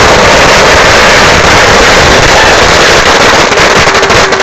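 A huge string of firecrackers going off inside a steel dumpster: a dense, continuous, very loud crackle of bangs. About three seconds in it begins to thin into separate pops as the string nears its end.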